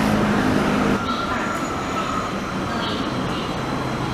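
Light rail tram approaching along an elevated track, a steady rumble of motors and wheels on rail, the sound changing abruptly about a second in as the tram draws in toward a station platform.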